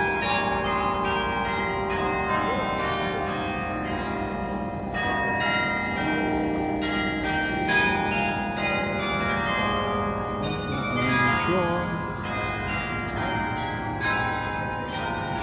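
Bok Tower's carillon playing a Christmas tune: a continuous run of struck bell notes, each ringing on under the next.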